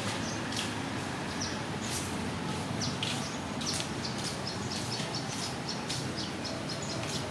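Small birds chirping repeatedly in short, high notes, with a quick run of chirps about five to six seconds in, over a steady background hum.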